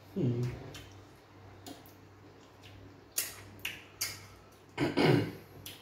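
Close-up eating sounds of fufu and okra soup being eaten by hand: a few sharp wet mouth clicks and smacks while chewing, with a short falling 'mm' voice sound just after the start and another near the end.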